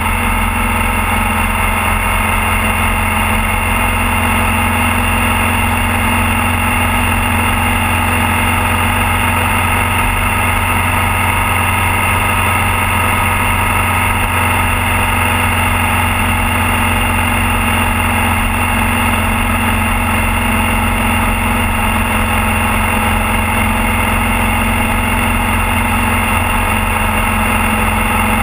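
Motorcycle engine running steadily at a constant cruising speed, mixed with steady wind and road noise, heard from a camera mounted on the bike.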